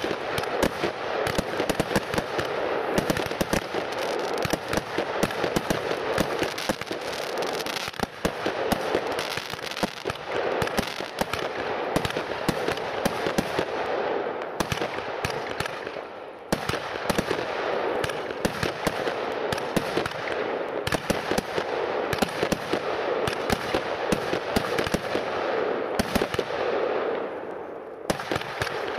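Weco 'Fire Combat' firework going off: a dense, rapid string of cracks and bangs over continuous crackling, with brief lulls about 16 seconds in and near the end.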